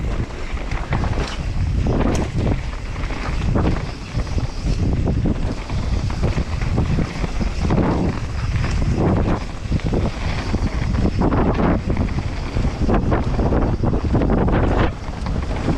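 Wind buffeting the microphone on a mountain bike riding fast down a dirt trail, with a continuous low rumble from the tyres and frequent short knocks and rattles from the bike over bumps.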